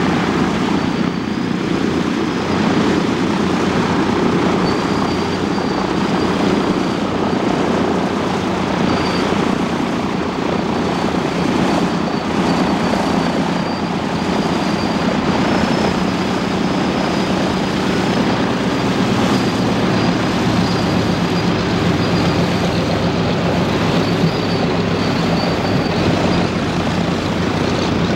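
Douglas DC-3 Dakota's twin radial piston engines and propellers running at taxi power, a steady continuous drone as the aircraft taxis.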